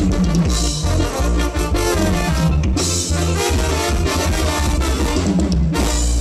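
Loud instrumental band music with brass and a drum kit over a heavy, steady bass.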